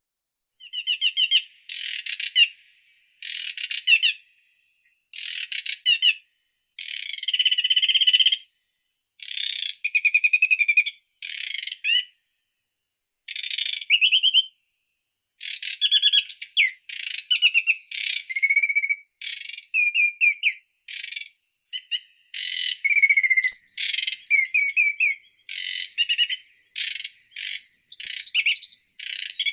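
A songbird singing a varied string of short phrases, each a second or so long, separated by brief pauses. Higher-pitched chirps join in about two-thirds of the way through.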